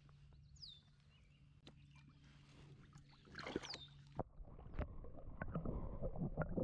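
A kayak being paddled: quiet water splashes and light knocks of the paddle come in an irregular run from about three seconds in, after a nearly silent start.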